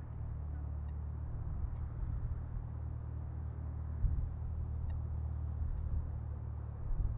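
Low, steady rumble of a Boeing 777-300ER's GE90 engines at taxi power as the airliner turns on the runway.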